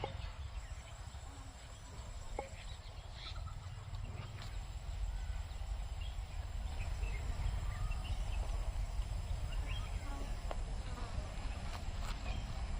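Chickens making faint, scattered clucks and chirps over a steady low rumble.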